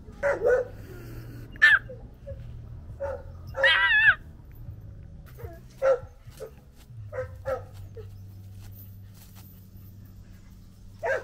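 Pomeranian giving a series of short, high barks and yips, with one longer wavering whine-like call about four seconds in.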